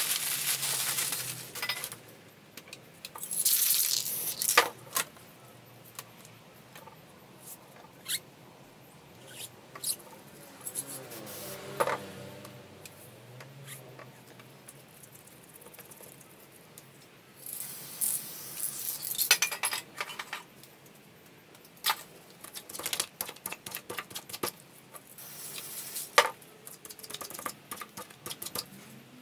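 A plastic bag crinkling as it is pressed and dabbed into wet spray paint on the board, then scattered short scrapes and clicks of hands and a tool working the sheet, in bursts with quiet gaps between.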